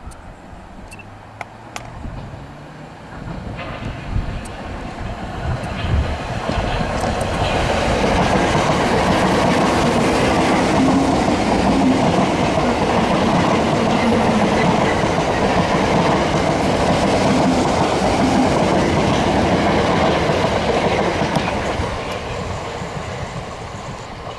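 Gatwick Express Class 442 electric multiple unit passing at speed. The rumble of wheels and motors builds from about three seconds in, stays loud for about fourteen seconds as the carriages go by, then fades as the train draws away.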